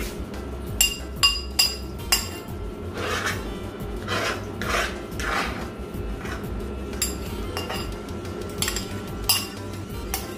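A metal utensil clinking and scraping against a dish: a few sharp clinks in the first two seconds and again late on, with a run of rasping scraping strokes in between.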